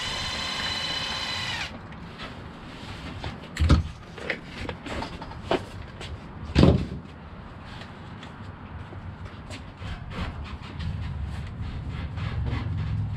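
A cordless power screwdriver whirs steadily for about a second and a half as it turns a screw at the top of an RC truck's shock, then stops. After it come clicks and clunks of plastic and metal parts being handled, the two loudest about four and six and a half seconds in.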